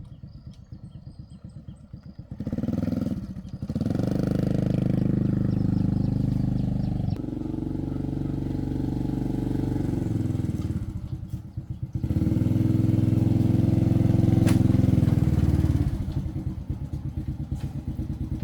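An engine idling with a low, uneven chug, revved up twice and held for a few seconds each time before dropping back to idle.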